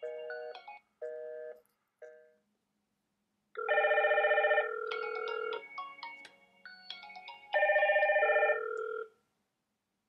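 Incoming-call ringtones from a doorbell call: a ringtone melody that breaks off about two seconds in, then after a short pause the ringing starts again, two loud trilling rings with a ringtone melody between them, as the call sounds on the smartphone's Hik-Connect app and the Hikvision indoor monitor.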